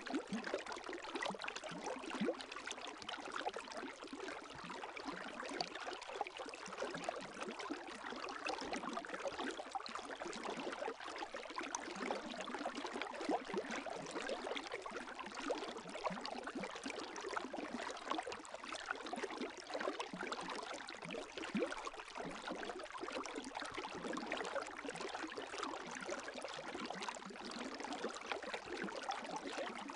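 Gentle lake waves lapping: a continuous, even patter of small splashes and trickling water with no larger breaking waves.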